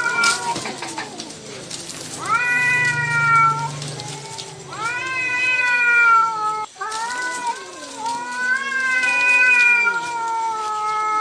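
Domestic cats caterwauling in a fight standoff: a series of long, drawn-out yowls that waver up and down in pitch, with a second, lower yowl overlapping in the second half.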